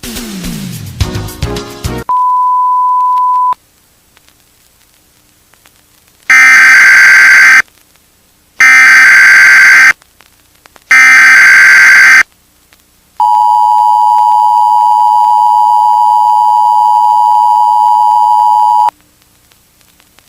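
Mock Emergency Alert System tones: a short falling, distorted sweep and a brief single steady beep, then three identical screeching SAME header data bursts, then the long two-tone EAS attention signal held for several seconds before cutting off.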